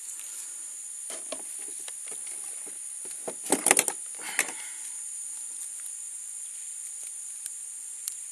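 Insects shrilling steadily in a high, even band. About three and a half seconds in, a short cluster of knocks and clatter is heard while a small traíra is being handled with lip-grip pliers in a plastic kayak.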